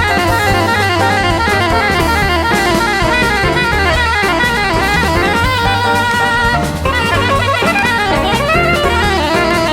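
Jazz recording: a soprano saxophone plays fast, winding runs of notes over a drum kit and a low bass line.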